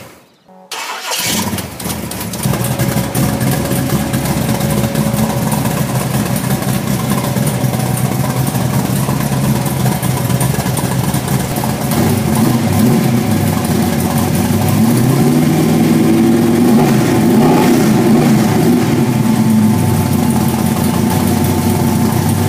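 Ford Cleveland 410 ci stroker V8 running, first at a steady idle and from about halfway through with the revs raised and wavering. Its headers are leaking badly at the front of cylinder 1 and the back of cylinder 8, where a wrong-fitting factory exhaust gasket does not seal.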